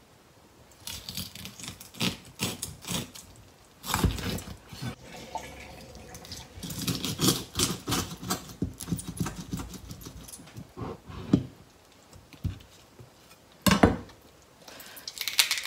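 A chef's knife cutting through boiled pig's trotters on a plastic cutting board: irregular knocks of the blade against the board and a quick run of small clicking, cracking sounds as it works through the trotter, with one sharper knock near the end.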